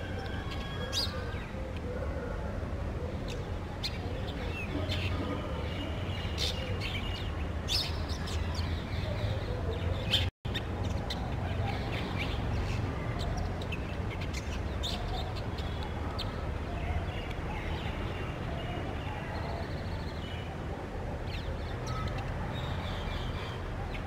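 Brown shrike singing a varied run of short chirps and upswept whistled notes, scattered unevenly, over a steady low background rumble. The audio drops out for a split second about ten seconds in.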